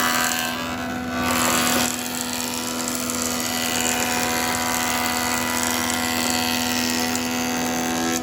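A machine running steadily: a constant hum with a dense hiss over it, the high hiss dropping away briefly about half a second in.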